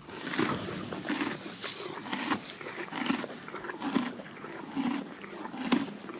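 Horse chewing hay: a repetitive crunching, about one chew a second.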